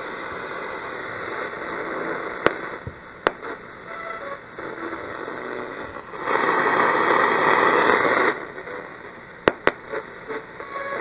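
Cariole 6-band portable radio on the shortwave band hissing with static as the dial is tuned, with a few sharp crackles, short snatches of tone, and a louder two-second rush of static about six seconds in. It is weak shortwave reception, a signal that is not very good.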